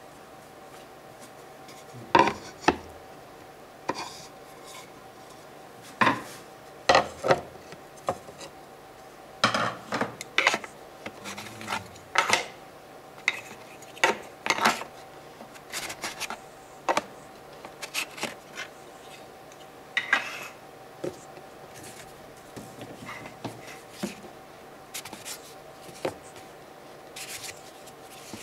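Small hand-held blocks knocked, set down and scraped against an upright white board wall and a tabletop: irregular sharp knocks and clicks with short scraping rubs between them.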